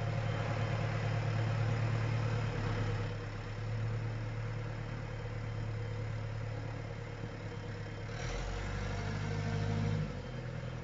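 Farm diesel engine idling steadily, heard from a tractor cab; a deeper rumble swells about eight seconds in and drops off near the end.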